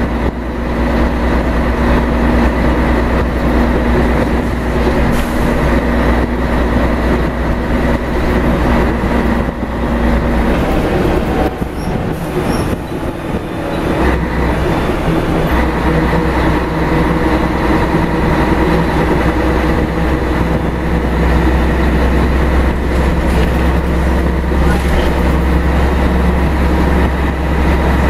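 Scania L113CRL bus heard from inside the passenger cabin while under way. Its rear-mounted Scania DSC1171 11-litre six-cylinder turbo diesel runs with a steady low hum and road noise. Roughly halfway through, the low engine note eases off for a few seconds, then pulls again.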